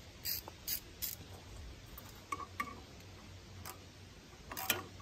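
Scattered light metallic clicks and taps of a wrench working a copper-washered line fitting loose on a Mitsubishi S370 tractor's cylinder head, with a small cluster of clicks near the end. The fitting is loose, only finger tight.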